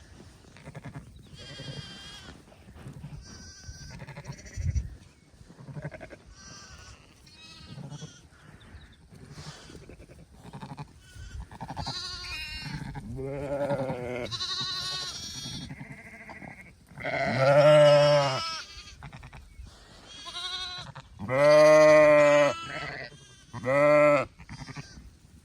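Sheep bleating in a lambing pen: young lambs calling repeatedly in short, high-pitched bleats, with three loud, deeper bleats from a ewe in the last third.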